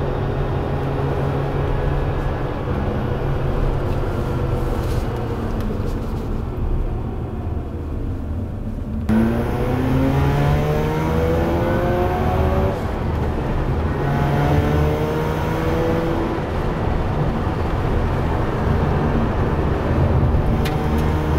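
Mazda RX-8's two-rotor rotary engine driving on the road, running at a steady cruise at first. About nine seconds in the revs climb as the car accelerates, and the engine note rises again through the gears later on.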